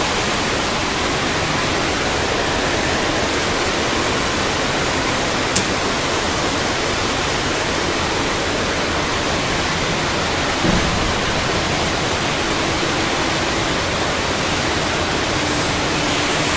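Very heavy rain pouring down, a steady, dense hiss. A single sharp click about five and a half seconds in and a soft thump near eleven seconds.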